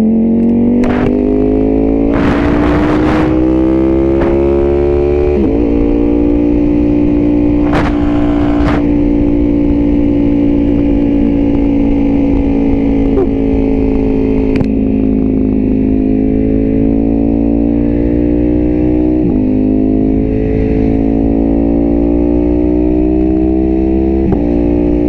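Ducati Panigale V4 sportbike's V4 engine accelerating through the gears. Its note climbs and then drops at each upshift: once about five seconds in, and twice more near the end. A steady low wind rush runs underneath.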